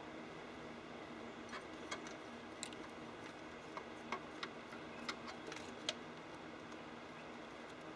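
Scattered light clicks and taps from tools and small parts being handled, about ten at irregular intervals, over a steady background hum.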